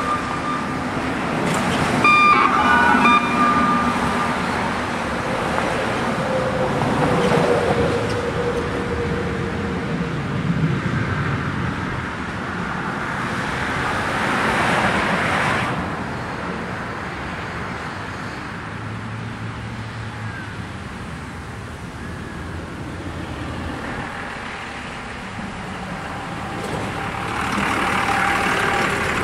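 Road traffic: vehicles passing, the noise swelling and fading twice. A brief tone sounds about two seconds in.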